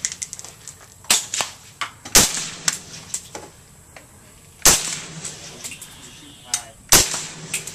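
Three suppressed shots from a Bushmaster ACR 5.56mm carbine with an AAC M4-2000 suppressor, fired singly about two and a half seconds apart, each a sharp crack with a short ring after it. Fainter sharp cracks fall between the shots.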